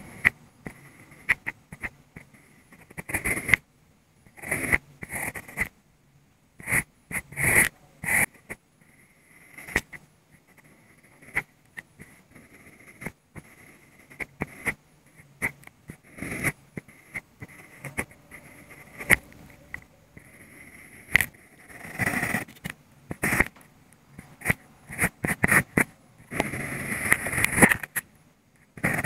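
Mechanical pencil lead scratching across drawing paper in short, irregular strokes, with brief pauses between them.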